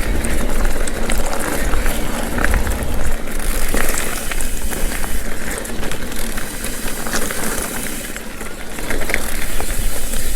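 Mountain bike riding over a dirt trail: tyres rolling on dirt with scattered clicks and rattles from the bike, and wind rumbling steadily on the microphone.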